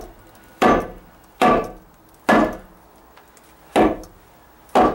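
Hammer striking a wooden 2x4 wall stud, five sharp blows about a second apart, knocking at a cut section of stud to drive it loose.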